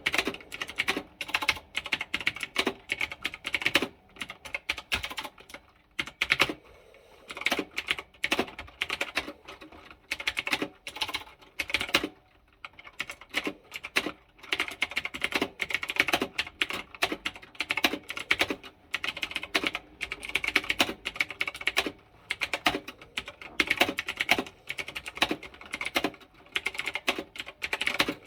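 Typing on a stock onn gaming keyboard: dense, irregular runs of key clicks, with short pauses about six and twelve seconds in.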